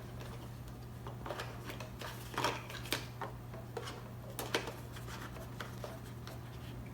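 Hands handling small plastic parts and helmet padding: irregular light clicks, taps and rustles, over a steady low hum.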